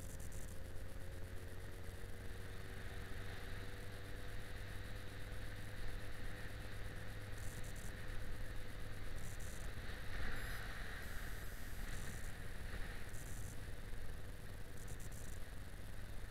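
Yamaha XJ6 Diversion's 600 cc inline-four engine running steadily under way, mixed with wind and road noise. The engine note eases slightly in the first few seconds.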